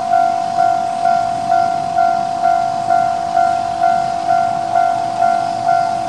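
Japanese railway level-crossing warning bell ringing its electronic 'kan-kan' tone, struck about twice a second at an even pace. It is sounding with the barriers down and the lamps flashing, warning that a train is approaching.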